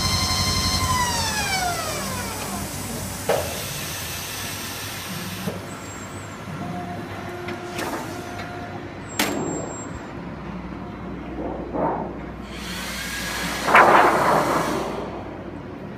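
Thermal CTP plate-setter winding down: a steady motor whine slides smoothly down in pitch as the drum spins down, then a few sharp clicks and knocks, and a loud burst of air hiss near the end.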